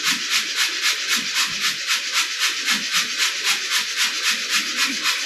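Rhythmic scratchy rasping, about five strokes a second and very even, as hot steel is worked by hand at the forge.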